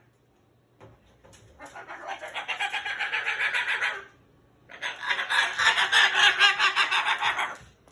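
Pet parrot making rapid, pulsing clucking chatter in two long bouts of two to three seconds each, with a short pause between them.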